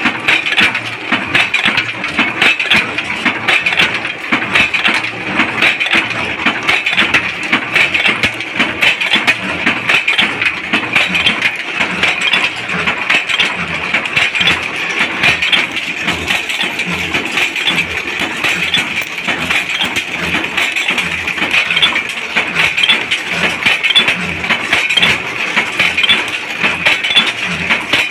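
Bolt-making machines running with a fast, unbroken metallic clatter, steel bolts clinking as they drop from the machine into its chute and onto the pile.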